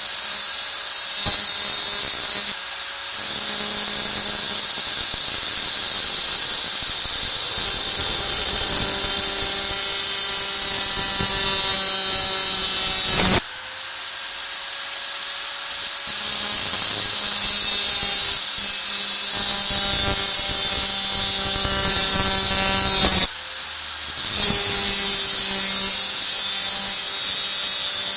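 Electric angle grinder with a thin disc grinding a steel blade strip, a steady high grinding noise. Three times the disc comes off the metal and the sound drops briefly, most noticeably for a couple of seconds about halfway through.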